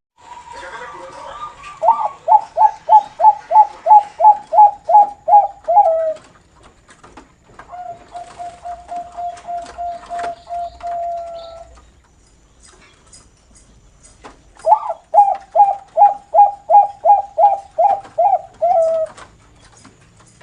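Bangkok-strain perkutut (zebra dove) singing in the noklak style: two fast runs of about a dozen short coos each, at roughly three or four a second, and between them one long steady note lasting about four seconds.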